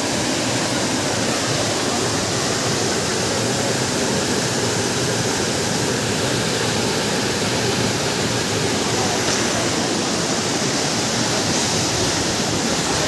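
Roshi waterfall's water pouring down: a steady, even rush of falling water.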